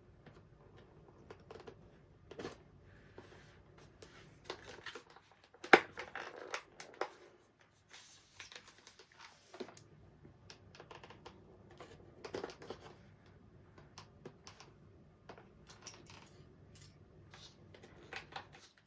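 Thick scissors snipping and scraping at product packaging, with scattered clicks and rustles. A sharp snap about six seconds in is the loudest.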